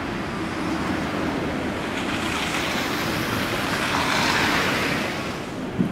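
Street traffic on a slushy road: the hiss of a passing vehicle swells to a peak about four seconds in and fades again, with a short thump just at the end.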